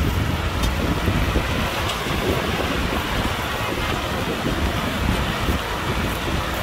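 Kubota tractor's diesel engine running steadily while plowing, with wind noise on the microphone.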